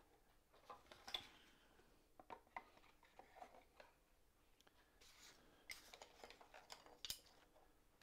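Near silence with faint scattered taps and rubbing as a felt-covered panel is pressed into a small wooden box lid by hand.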